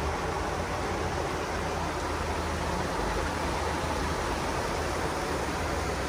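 Creek water running through a concrete culvert, a steady, even noise.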